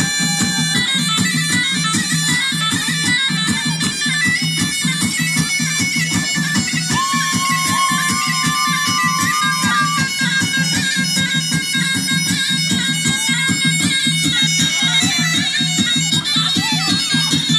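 Tulum (Black Sea bagpipe) playing lively horon dance music over its steady drone.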